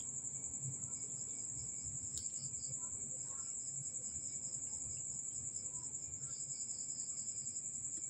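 A continuous high-pitched insect trill, pulsing rapidly several times a second.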